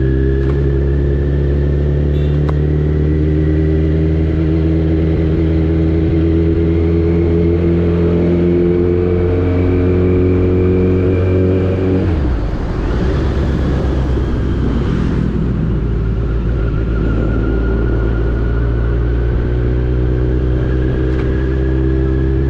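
Kawasaki Z900's inline-four engine running steadily while the motorcycle rides along at low town speed. About halfway through the steady note breaks into a rougher, noisier stretch for a few seconds, then the steady engine note returns.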